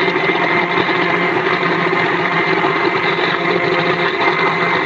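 Electric blender running steadily, blending a thin liquid mixture of milk, flour and cheese, with a constant motor hum.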